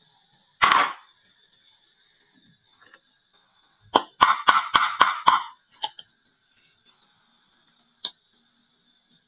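Marbles clacking on a wooden marble run and dropping into toy trucks: one clack about half a second in, a quick clattering run of about six clacks around the middle, then two more single clacks.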